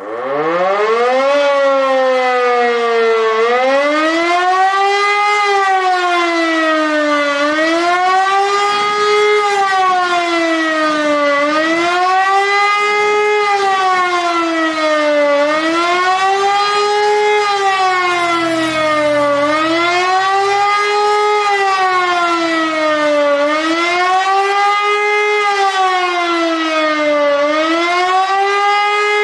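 E57 electromechanical siren spinning up and then sounding a loud wavering howl, its pitch rising and falling about every four seconds: the rising and falling tone of the German public warning signal.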